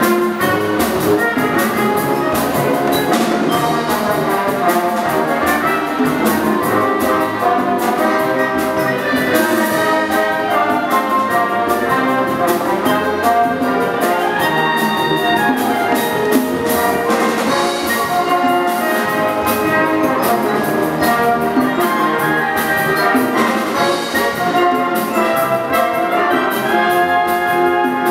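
Youth wind band playing live: brass carrying the melody over woodwinds, with percussion keeping a steady beat.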